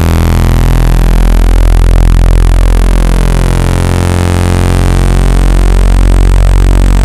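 Synthesized speaker water-eject tone: a loud, steady, deep buzz centred near 50 Hz with a dense stack of overtones that slowly shift and swell. Played at full volume, it makes a wet speaker's cone vibrate hard to push trapped water out of the grill.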